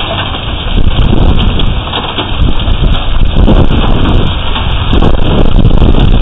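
Severe hailstorm: hail and heavy rain pelting down, a dense clatter of many small hits, with strong wind buffeting the microphone in a loud, continuous rumble.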